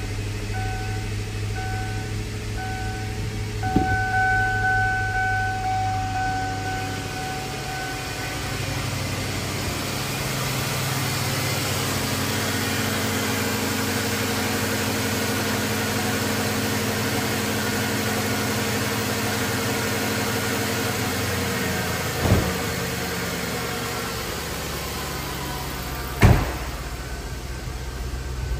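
2002 Ford Thunderbird's 3.9-litre V8 idling steadily, heard close up from under the open hood for most of the time. In the first several seconds a dashboard warning chime beeps rapidly and then holds one steady tone. Two sharp knocks sound near the end, the second louder.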